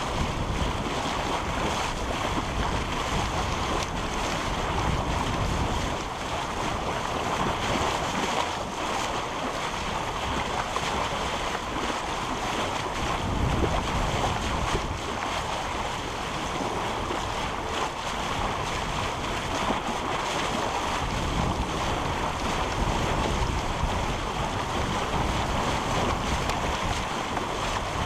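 Wind buffeting the microphone over the rush of water along a sailboat's hull while under sail, a steady noise that swells and eases.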